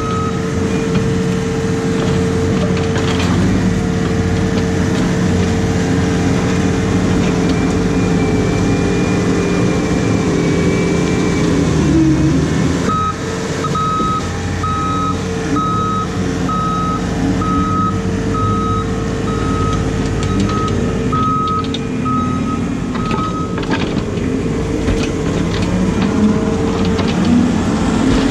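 Diesel engine of an excavator running steadily, its note dipping briefly under load. Then its travel alarm beeps regularly, about once a second, for roughly ten seconds as the machine moves.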